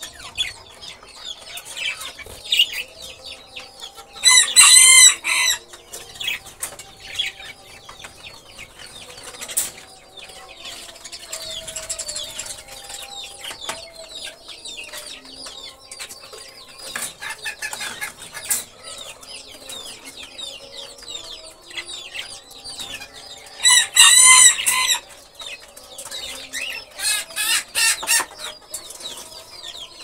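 Small caged parrots chirping and chattering continuously, with two much louder, drawn-out calls about four seconds in and again near twenty-four seconds, and a quick run of sharp calls shortly after the second.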